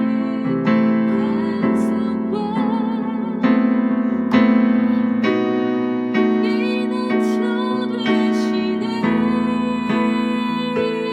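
Piano or electric keyboard playing a slow worship-song melody with full chords, a new chord struck about once a second.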